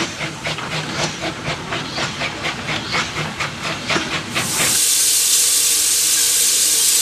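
Small 0-4-0ST saddle-tank steam locomotive working a goods train, its exhaust beating about three times a second; about four and a half seconds in this gives way suddenly to a steady, louder hiss of steam from the engine standing still.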